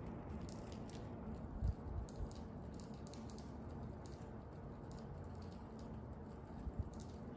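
Irregular light clicking and clacking of unknown origin over a steady low hum, with a low thump about a second and a half in and another near the end.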